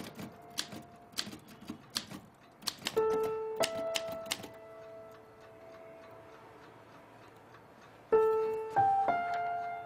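Manual typewriter keys clacking in irregular runs for the first half, over slow, sparse held music notes. The typing stops about halfway through, and a louder group of notes enters near the end.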